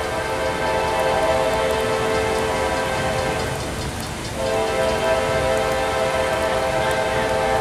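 Nathan K5LA five-chime air horn on a CSX AC44CW locomotive sounding two long blasts, the second starting about four seconds in, the opening of its signal for a road grade crossing. Steady rain hiss underneath.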